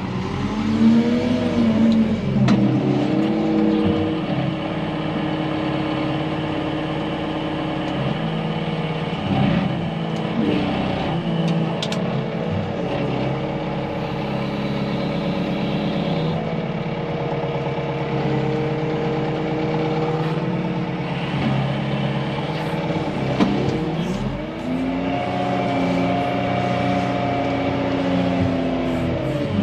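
Tractor engine running under work, revving up and back down about a second in and again near the end, with a few clanks around the middle.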